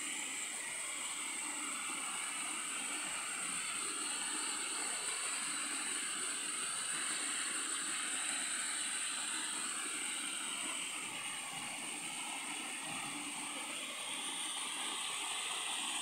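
Mountain stream water running and splashing over rocks and small cascades: a steady rushing, with a steady high-pitched hiss over it.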